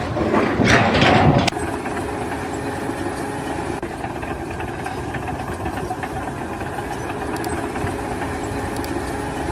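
A loud noisy burst for about the first second and a half, then an engine running steadily.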